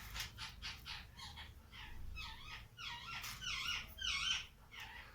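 Rapid, repeated high squeaky calls from a small animal, a few a second, growing louder about three seconds in.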